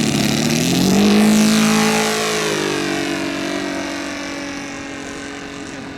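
Saito FG-90R3 three-cylinder four-stroke radial petrol engine on an RC biplane, throttled up to full power for takeoff. Its pitch rises within the first second, then drops at about two and a half seconds and the sound fades steadily as the plane moves away.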